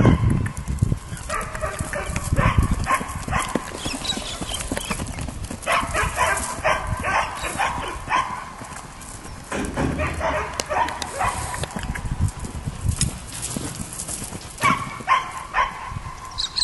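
Hoofbeats of a horse cantering on dry, hard ground, while a dog barks in five or six separate bouts.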